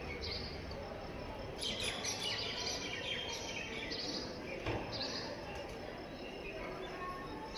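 Small birds chirping in short repeated calls over a steady outdoor background hiss, with a brief flurry of twittering about two seconds in. A single soft knock sounds just before five seconds in.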